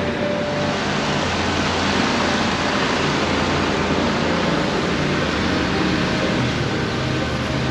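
Steady rushing outdoor noise with a low hum underneath and no distinct events.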